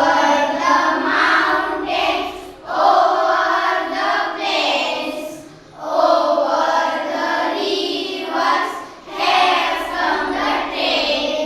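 A group of schoolchildren singing an English poem together in unison, in phrases of about three seconds with short breaks for breath between them.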